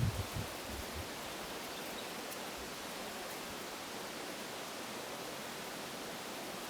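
A steady, even rushing noise outdoors, with a couple of low bumps right at the start.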